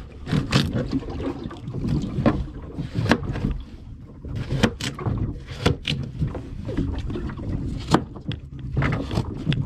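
Fishing boat at sea: a steady low rumble with irregular sharp knocks and clatter scattered throughout.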